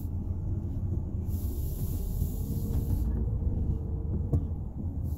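Road and engine noise inside a moving car's cabin: a steady low rumble, with a high hiss that swells for a second or two near the middle.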